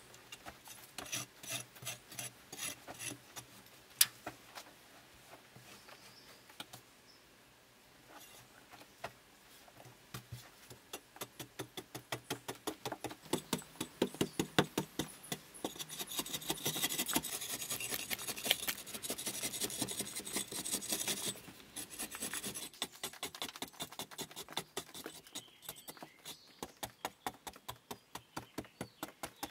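Flat metal blade on a long wooden handle scraping and shaving a packed-earth wall in quick repeated strokes, busiest and loudest in the middle stretch. A single sharp click about four seconds in.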